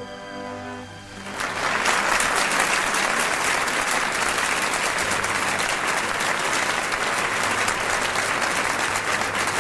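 The orchestra's last chord dies away, and about a second in a large audience breaks into steady applause that carries on throughout.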